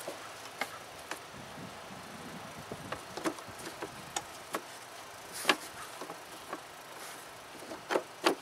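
Plastic clicks and knocks as a pleated panel air filter is fitted into the 2007 Toyota Highlander's plastic airbox under the raised lid. The taps are scattered and light, with a louder knock about five and a half seconds in and two more near the end.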